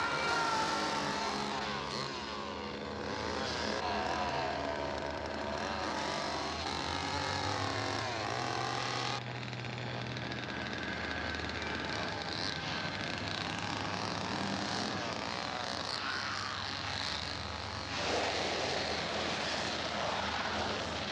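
Petrol chainsaw engine running and revving, its pitch swooping up and down, over the steady low running of a pickup truck's engine.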